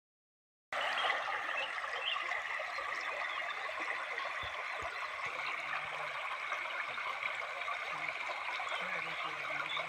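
Steady rushing of flowing water, like a stream or waterfall, starting abruptly just under a second in.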